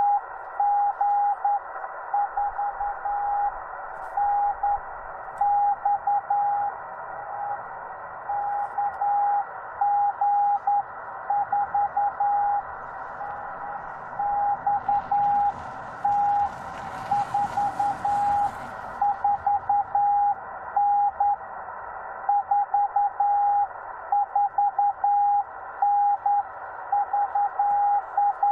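Morse code (CW) from a Yaesu FT-891 ham radio transceiver: a single steady tone keyed in fast dots and dashes, over the receiver's constant band of static hiss. About halfway through there is a brief rush of wider hiss.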